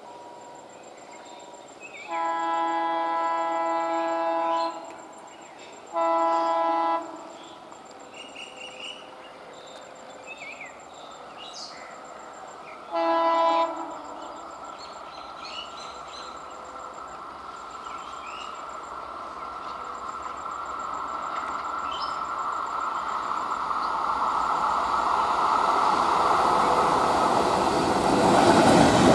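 Diesel locomotive horn sounding three blasts: one long blast of about two and a half seconds, a short one just over a second later, and another short one about six seconds after that. Between and after the blasts the train's rumble grows steadily louder as it comes closer, and it is loudest near the end as it runs past.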